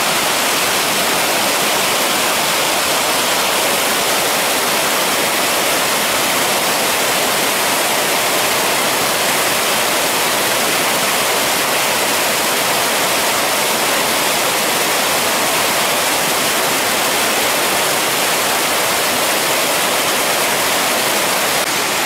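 Small mountain waterfall and rapids: turbulent white water running over boulders and a rock ledge in a steady, unbroken rush. The stream is in high flow after rain.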